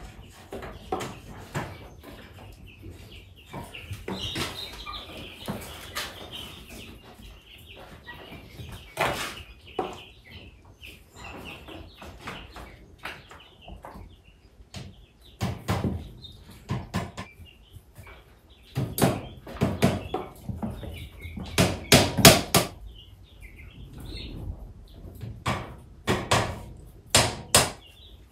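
A small hammer tapping nails into a wooden beehive frame, in quick runs of sharp strikes that get loudest in the second half. Chickens cluck in the background.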